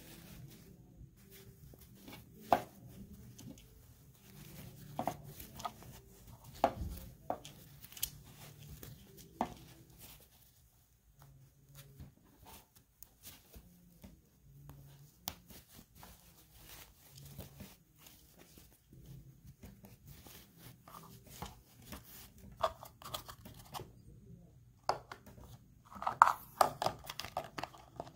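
Hands handling a 12-inch action figure and its outfit: cloth fatigues rustling and a rubbery plastic boot being worked onto its foot, with scattered clicks and taps against a wooden table. The clicks come thicker near the end.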